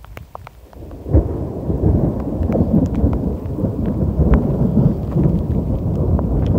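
Thunder rumbling: a sudden loud onset about a second in, rolling on as a deep, uneven rumble. A few light ticks of raindrops sound over it.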